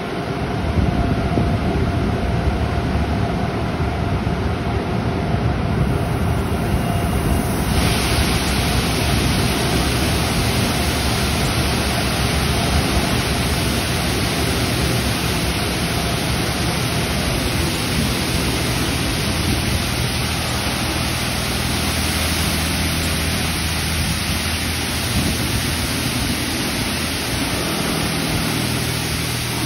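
PDQ LaserWash 4000 touchless car wash spraying high-pressure water from its overhead arm onto a car: a steady rushing hiss with a low hum under it. The hiss turns brighter and fuller about eight seconds in.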